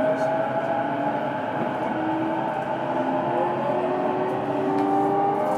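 E233-series electric train motor car heard from inside the car: the VVVF inverter and traction motors whine in several tones that rise slowly in pitch as the train accelerates, over the rumble of the wheels on the rails.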